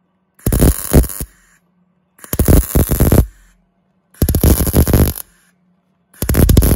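MIG welder laying short stitch welds on a steel patch plate. There are four bursts of arc noise, each about a second long and about a second apart, with a faint low hum in the gaps.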